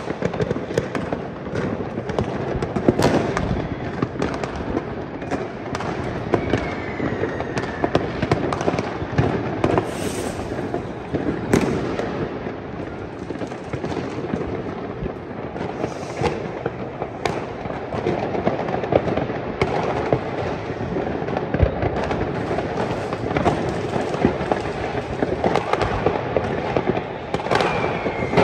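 Many fireworks and firecrackers going off at once in a dense, unbroken crackle of bangs. A whistling rocket glides down in pitch a few seconds in and again near the end.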